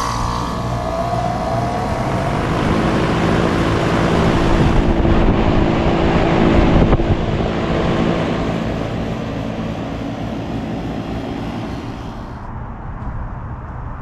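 Central air-conditioner condensing unit running just after start-up: the compressor hums while the outdoor fan comes up to speed, with a rising whine in the first second or so, then a steady hum with fan noise. About twelve seconds in, the hiss drops away, leaving a lower hum.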